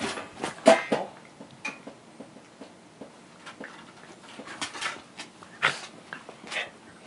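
Two Shiba Inu play-fighting and mouthing each other: scuffling and clicking sounds, with short dog noises. The loudest is about half a second in, with a few more near the end.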